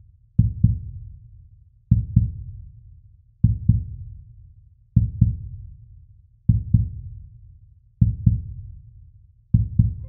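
Slow heartbeat sound effect: a low double thump, lub-dub, repeating about every one and a half seconds, seven beats in all.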